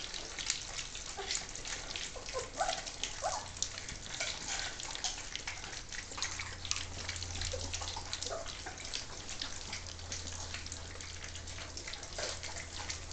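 A litter of three-week-old German Shorthaired Pointer puppies eating mash from feeding trays: many rapid, wet lapping and smacking sounds, with a few short squeaks among them.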